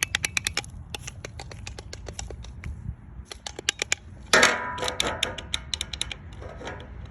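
Rapid plastic clicking in quick runs, from the buttons of a toy remote-control car's controller being pressed over and over. About four seconds in, a louder, brief rattling noise.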